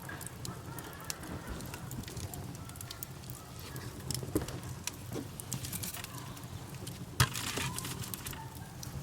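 Campfire crackling: irregular small pops and snaps over a steady low rumble of the burning fire, with one sharp, louder pop about seven seconds in followed by a brief hiss.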